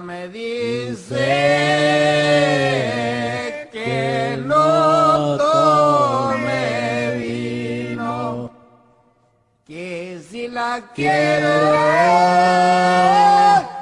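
Unaccompanied singing in long, drawn-out phrases, with a break of about a second roughly two-thirds of the way through.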